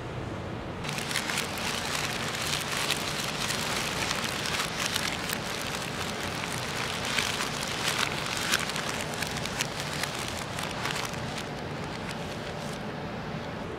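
Iridescent plastic film sheets crinkling as hands crumple and shuffle them: a dense run of small crackles that starts about a second in and eases off near the end.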